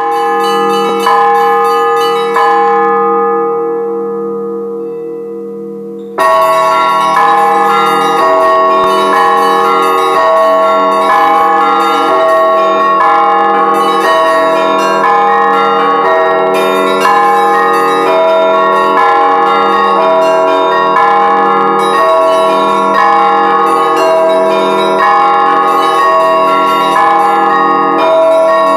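Church bells ringing. A few separate strokes die away, then about six seconds in several bells start being struck in a quick, continuous peal.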